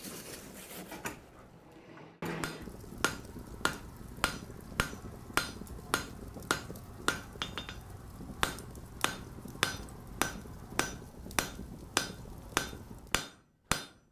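Blacksmith's hammer striking an anvil in a steady rhythm, a little under two blows a second, each with a short metallic ring. The blows start abruptly about two seconds in, after a faint shop background.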